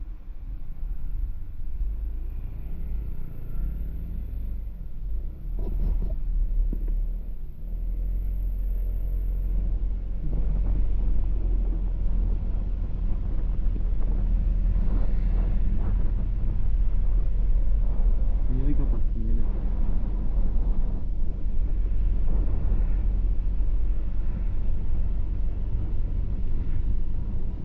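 Car driving along a road, a steady low rumble of engine and tyre noise that gets louder about ten seconds in.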